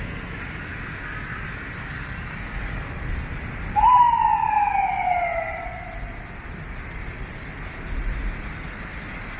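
Steady hiss of rain mixed with distant city traffic. About four seconds in, a single tone starts suddenly and slides down in pitch over about two seconds, and a brief low rumble swells near the end.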